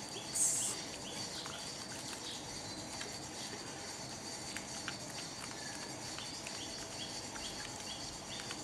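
Hands working up lather in a glass bowl of soapy water: a brief wet swish about half a second in, then faint wet clicks. Behind it runs a steady background chirping, with short high chirps about twice a second.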